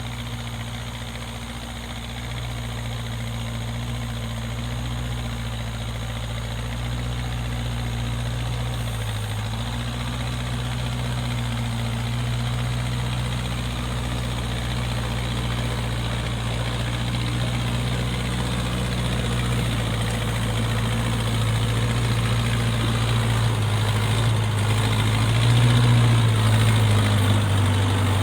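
Backhoe loader's diesel engine running steadily, getting gradually louder and stepping up in level near the end.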